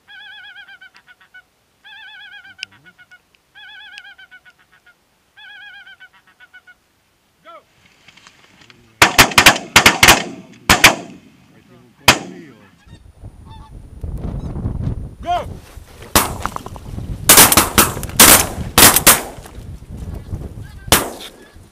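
Geese honking in four short bursts of rapid calls over the first seven seconds. From about nine seconds in, a string of loud shotgun shots fires in quick clusters, with more around the middle and near the end, over wind rumbling on the microphone.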